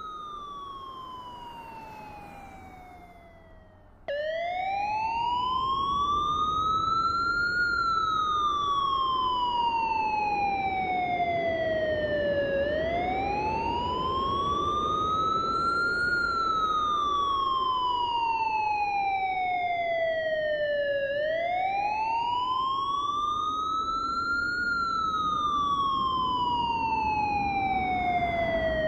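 Emergency-vehicle siren in a slow wail, its pitch rising and then falling in a cycle of about eight and a half seconds, over a low rumble. It fades away in the first few seconds, then cuts back in suddenly and louder about four seconds in.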